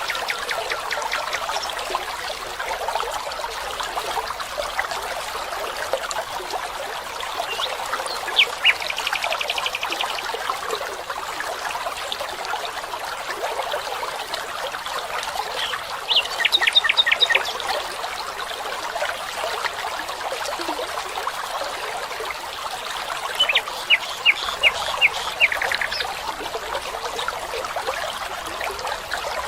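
Running water trickling steadily, with a bird calling in short series of quick, high notes three times: about eight seconds in, about sixteen seconds in, and near the end, the last series falling in pitch.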